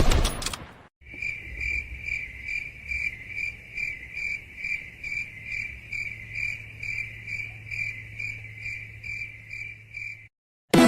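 A crickets-chirping sound effect, the stock meme cue for awkward silence: even chirps at about two a second over a faint low hum, cut off suddenly near the end. It follows a sudden hit at the start that dies away within a second.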